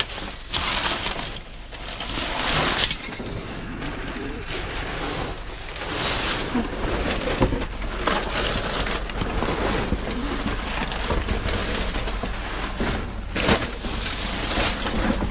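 Plastic bags and air-pillow packing film crinkling and rustling as they are pushed around by hand among boards and paper, with irregular louder crackles.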